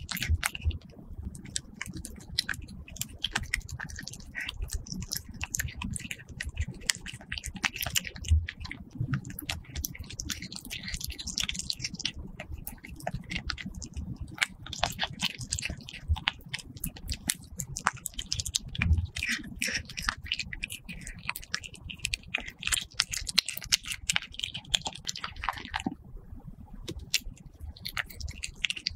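A kitten chewing and biting a strip of raw beef held on chopsticks, close to the microphone: a rapid, irregular run of clicks and smacks.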